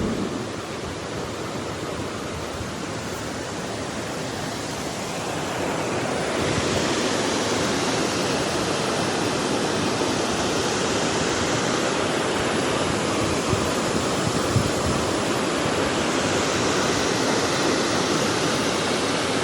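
Steady rush of a waterfall, growing louder about six seconds in and then holding.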